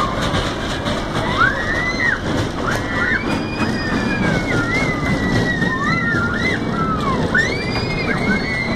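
Dragon Wagon kiddie roller coaster heard from on board: the wheels squeal on the curved track, over and over, each squeal sliding up and down in pitch. Underneath runs a steady rumble from the cars rolling and from wind noise.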